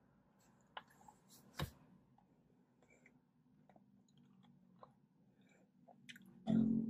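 Soft chewing and mouth sounds of eating ice cream, with a few faint clicks from a plastic spoon and plastic cup. A brief louder low sound comes near the end.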